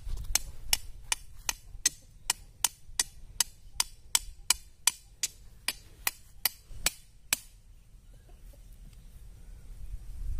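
A hammer striking the top of a thin iron rod, driving it into the soil. The blows are sharp and even, nearly three a second, and stop about seven seconds in.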